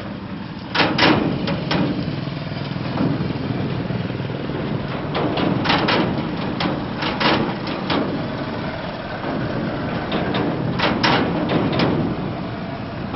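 Motorcycle engines running as motorcycles ride across a steel railway bridge, a steady engine hum cut by clusters of sharp knocks about a second in, around six to eight seconds in, and near the end.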